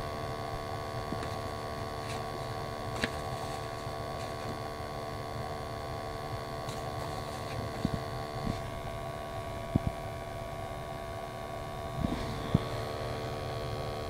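Testo 320 combustion analyzer's built-in sampling pump running steadily during a flue-gas measurement, a constant hum with a few faint taps.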